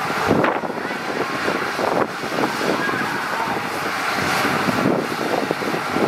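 Diesel heavy earthmoving machinery running at work, with wind buffeting the microphone in uneven gusts.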